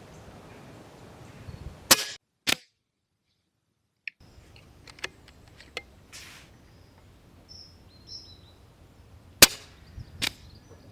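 AT Vulcan 2 Tactic PCP air rifle firing: sharp single shot cracks, the loudest about two seconds in and again near the end, with fainter clicks and knocks between. A short dead gap follows the first pair of cracks.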